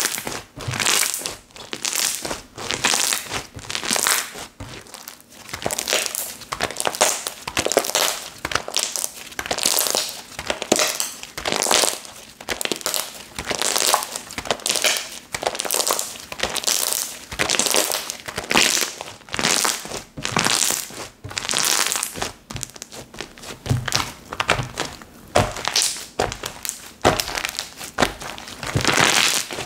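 Slime from Cozy Slime being squished and pressed by hand, one squeeze about every second.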